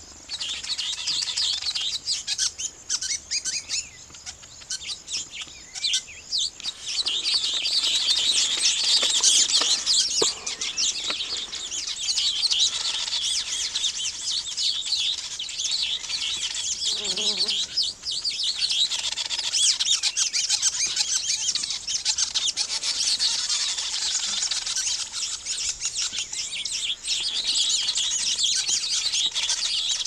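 Weaver birds chattering: many fast, overlapping high chirps and buzzy trills from several birds. It is sparse for the first few seconds and becomes a dense, continuous chorus from about seven seconds in.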